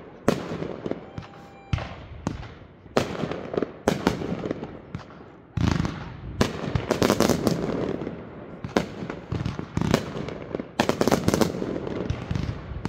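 Consumer aerial fireworks going off in quick succession: an irregular series of sharp bangs that bunch into dense volleys, with lower rumble between the reports.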